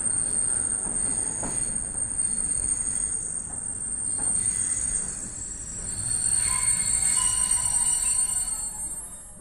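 Railway coach running slowly into its stop, with a low rumble and high-pitched steady wheel squeal. In the second half more squealing tones join in, and the sound fades away near the end.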